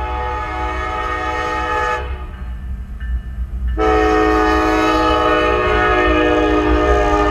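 Norfolk Southern diesel locomotive's multi-tone air horn blowing. A long blast breaks off about two seconds in, and a louder blast starts just under two seconds later and is held as the lead locomotive arrives, with a low rumble underneath.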